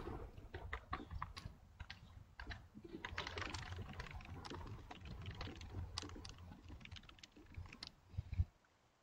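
Typing on a computer keyboard: a fast, irregular run of key clicks that stops shortly before the end.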